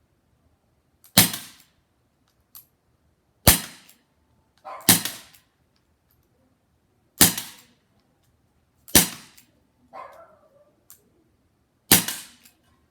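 Crosman SNR 357 CO2 revolver firing six shots, each a sharp crack with a short tail, spaced one to three seconds apart.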